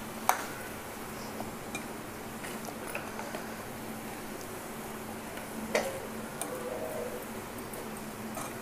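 Sliced onions sizzling in oil in a steel kadai as they fry to brown, while a steel ladle stirs them, scraping and ticking against the pan. The ladle clinks sharply on the pan twice, right at the start and just before six seconds in.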